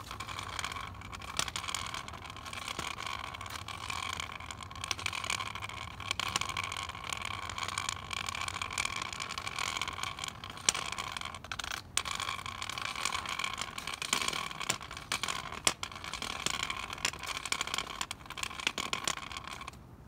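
A steady mechanical whine over a low rumble, with scattered rattles and clicks, cutting off abruptly just before the end.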